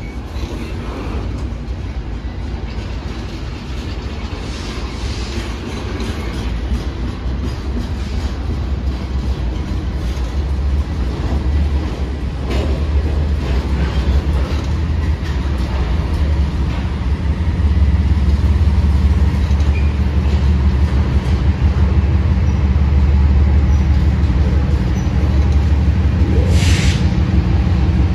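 Double-stack intermodal freight train rolling slowly past as it slows down: a steady low rumble of wheels and cars on the rails that grows louder, with a few clanks around the middle and a short high-pitched burst of noise near the end.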